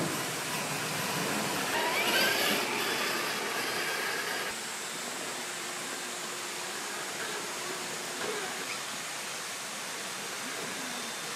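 Electric motor and geared drivetrain of an Axial SCX6 1/6-scale RC rock crawler whining, rising in pitch about two seconds in, over a steady rushing hiss.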